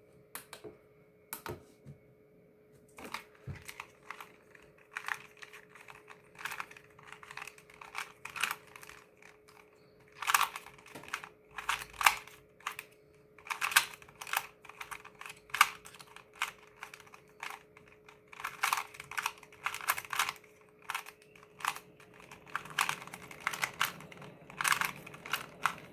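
A plastic 2x2 Rubik's Cube being turned quickly in a speed solve: a dense, irregular run of small clicks and clacks. It starts with a few isolated clicks and becomes continuous about three seconds in.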